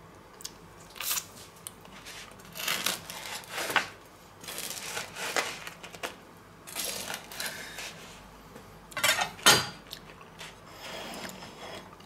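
A chef's knife sawing through a crusty garlic baguette on a wooden cutting board in several short strokes, with clinks of a fork and plate and a few sharp knocks as the knife is set down on the board.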